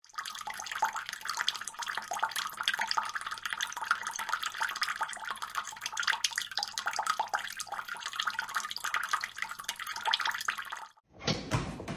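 Pet drinking fountain's spout trickling and splashing water into its bowl, a dense, irregular patter that cuts off about a second before the end.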